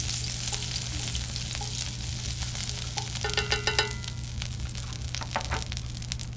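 Rendered duck fat sizzling on a hot cast-iron griddle as a plastic spoon spreads it around: a steady hiss with scattered crackles. A brief squeak comes about three and a half seconds in.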